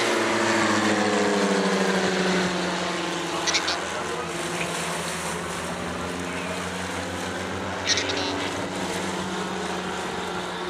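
Piston engines and propellers of two Silence Twister aerobatic planes droning through aerobatic manoeuvres. Their pitch falls over the first couple of seconds, then holds steady. Two short high clicks come about three and a half and eight seconds in.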